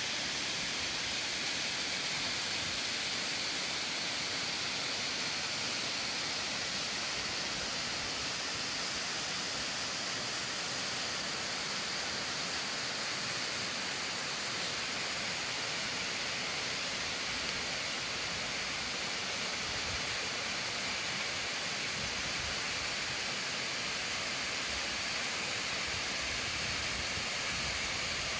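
Steady rush of a waterfall and the flowing mountain stream below it, an even hiss of water that does not change.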